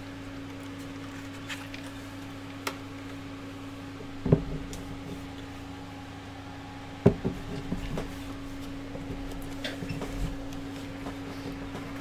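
Hard knocks and clicks of parts being handled over a steady low hum: a couple of single clicks, a sharp knock about four seconds in, another about seven seconds in, then a run of lighter taps and clicks.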